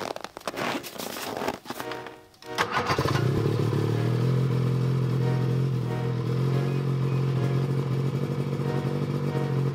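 Ski-Doo X-RS 600 snowmobile's two-stroke twin engine starting. It gives a couple of seconds of uneven sputtering, catches a little under three seconds in, and then idles steadily.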